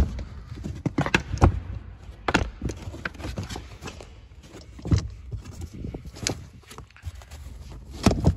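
A car floor mat being handled and fitted into the footwell by hand: irregular knocks, thumps and scuffs as the mat is shifted and pressed into place.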